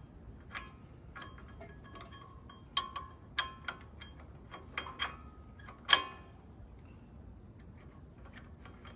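Steel hitch pins and the metal frame of a tractor's three-point quick hitch clinking and tapping as the pins are pulled and handled: scattered light metallic clicks with a brief ring, the loudest about six seconds in.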